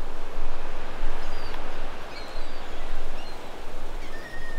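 Steady rushing noise of wind and surf on an open beach, rising and falling in gusts, with a few faint high bird chirps and a short thin whistle near the end.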